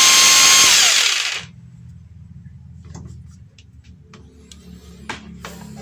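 Electric jigsaw's motor run briefly, a steady whine that winds down about a second and a half in. After it, a low hum and a few light clicks and knocks.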